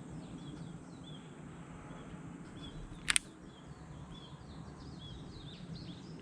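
Small birds chirping over and over, short high calls every half second or so, over a steady low outdoor background noise. About three seconds in there is one sharp double click, the loudest sound.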